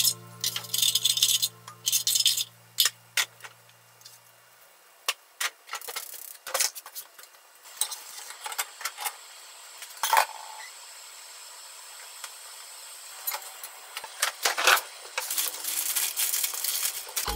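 Kitchen utensil clicks and clinks against a square metal tamagoyaki pan as a rolled omelette is lifted out, then plastic packaging crinkling as a packet is torn open near the end.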